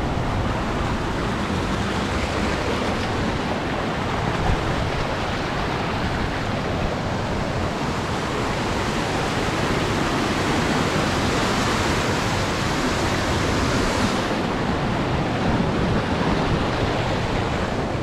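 Steady rushing of a mountain stream, a continuous even hiss of flowing water.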